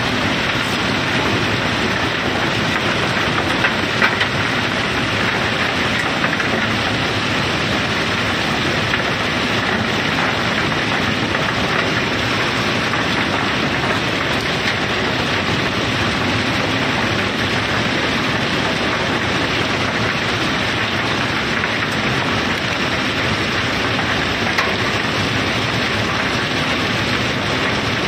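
Steady, dense rattle of river pebbles sliding down the barge hold's sloped steel floor and pouring through the unloading gap, with a few sharper knocks of single stones about four seconds in.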